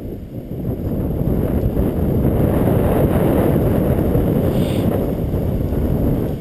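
Wind buffeting the camera's microphone: a loud, unsteady low rumble.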